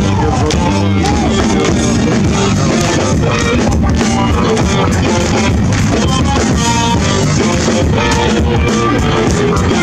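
Live rock band playing loud through an outdoor PA system: a steady drum-kit beat with electric guitar.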